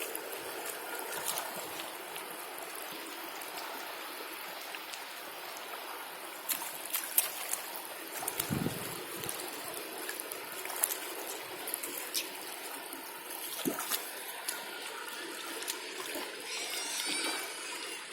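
Shallow stream water trickling steadily over stones, with a few sharp clicks and one dull thump about eight and a half seconds in.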